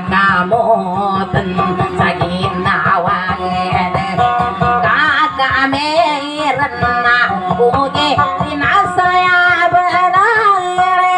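A woman singing a Maranao dayunday song while strumming an acoustic guitar.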